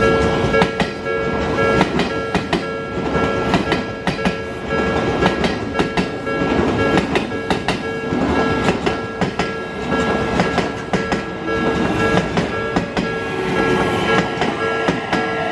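Odakyu 3000 series ten-car electric train rolling over a level crossing, its wheels clacking over the rail joints in a steady run of knocks over the rumble of the cars. A level-crossing warning bell keeps ringing throughout.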